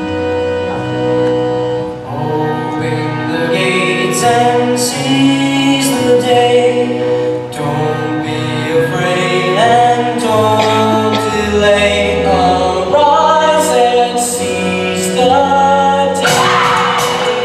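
Show-tune music with a singing chorus played loud over a gym sound system for a dance routine. Near the end a burst of crowd cheering and whoops breaks in over the music.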